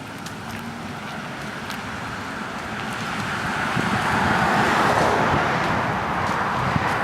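A car going by on the road, its tyre and engine noise growing louder to a peak about two-thirds of the way through, then easing slightly.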